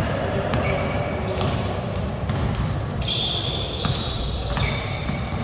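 Basketball being dribbled on an indoor court floor, with short high squeaks of sneakers on the court about three seconds in.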